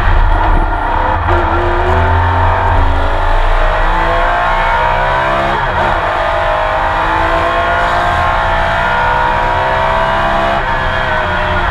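Onboard sound of a Porsche 911 RSR's flat-six racing engine pulling hard, its pitch climbing steadily. About halfway through, an upshift drops the pitch and it climbs again.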